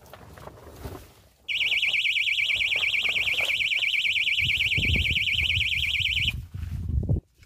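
Electronic bite alarm on a set fishing rod sounding a loud, fast-warbling tone for about five seconds: a fish taking the bait. Low thuds and rustling of someone running up through grass come in near the end.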